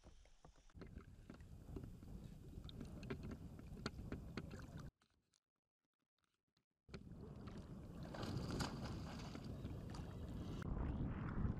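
Water lapping and sloshing close to a float tube, with scattered small clicks and knocks. The sound cuts out completely for about two seconds midway, then comes back louder.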